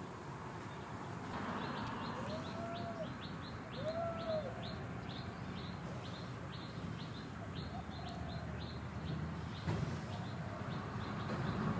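Birds calling outdoors: a steady run of short, high, falling chirps at about three a second, and two lower, arched call notes a few seconds in.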